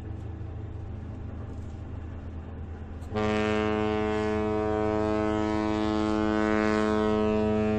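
Mein Schiff 1 cruise ship's horn sounding one long steady blast that starts about three seconds in, over a low rumble.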